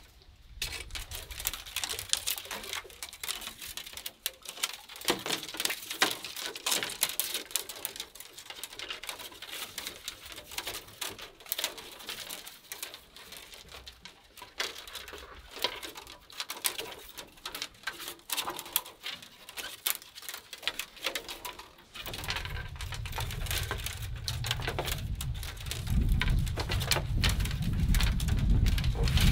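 Thin bamboo strips rustling, clicking and scraping against each other as they are woven by hand into a basket: a dense run of small irregular clicks. About three-quarters of the way in, a low rumbling noise comes in and grows louder.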